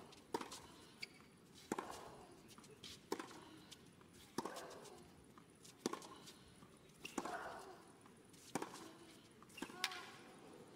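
Tennis rally: racket strings striking the ball about every second and a half, eight shots back and forth, with a player's grunt on every other stroke.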